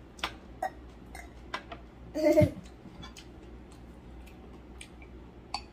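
Scattered light clicks and taps of chopsticks and a spoon against ceramic bowls and plates during a meal, with a short vocal sound a little over two seconds in.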